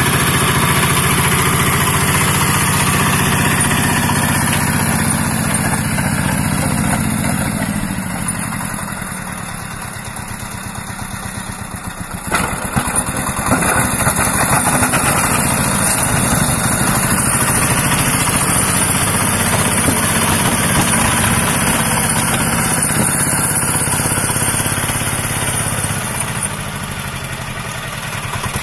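Single-cylinder diesel engine of a 12-hp Rusich T-12 mini tractor running steadily as the tractor pushes snow with its front blade. The sound fades for a few seconds twice as the tractor moves off, then comes back up.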